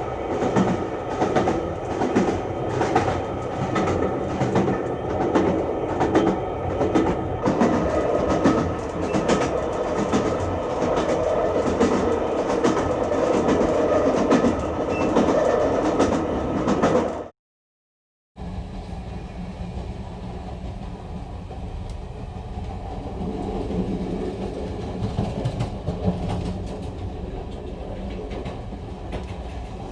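Train wheels running over the rails with a loud, rhythmic clickety-clack for about 17 seconds. After a brief gap of silence, a quieter, steadier low rumble of a running train follows.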